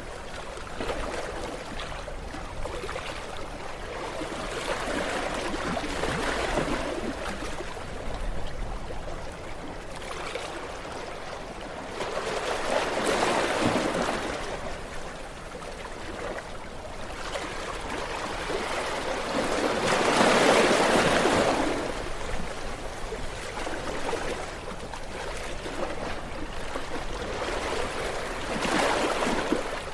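Ocean waves washing onto a shore: a continuous hiss of surf that swells into louder breaks about every seven or eight seconds, three times, with the loudest past the middle.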